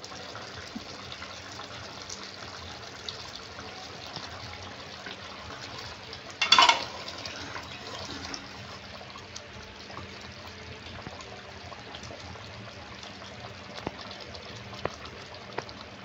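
Egg curry simmering in a steel kadhai, a steady bubbling hiss with scattered small pops, and a brief loud clatter about six and a half seconds in.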